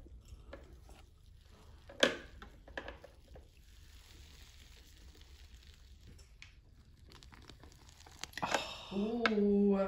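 Faint crackling of cotton candy melting and crushing between the hot plates of a closed waffle iron, with a sharp click about two seconds in. Near the end a drawn-out vocal "ooh" is heard.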